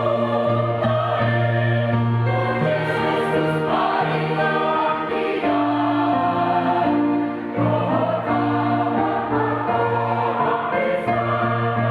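Mixed church choir singing in harmony, with held chords and a steady low bass line.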